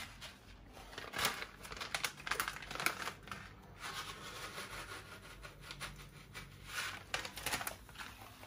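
A plastic spice packet crinkling and rustling as it is handled and shaken out over a pot of soup, with scattered light clicks.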